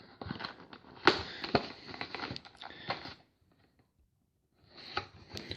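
Cardboard hobby box and foil card packs being handled: irregular rustling and crinkling with a couple of sharper knocks about a second in, a brief pause, then more light rustling near the end.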